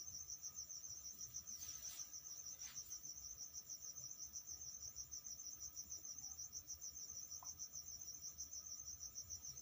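A cricket chirping steadily in a fast, even pulse. A faint brief rustle comes about two seconds in.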